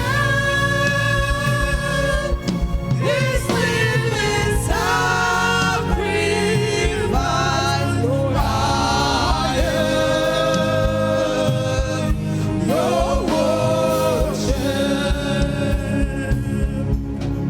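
Gospel worship music: singers holding long notes with sliding runs between them over a steady instrumental backing.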